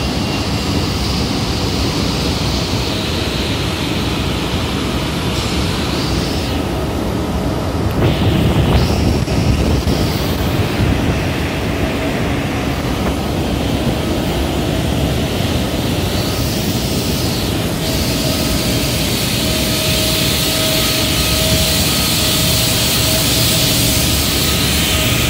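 Steady roar of cement plant machinery, with a thin steady whine running through it that becomes plainer in the second half; the roar swells a little louder and deeper about eight seconds in.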